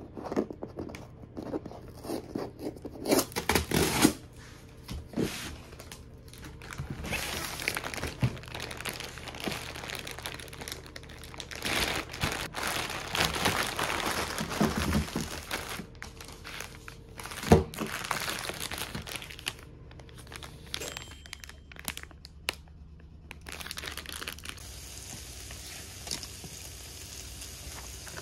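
Packaging being opened by hand: packing tape torn off a cardboard box, then plastic bags and wrappers of individually packed scones crinkling and rustling, with a single sharp knock a little past halfway. Near the end a steady sizzle starts as chicken breast pieces cook on an electric grill plate.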